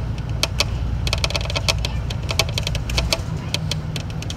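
Bus running with a steady low engine rumble, overlaid by rapid, irregular clicking and rattling, busiest in the middle.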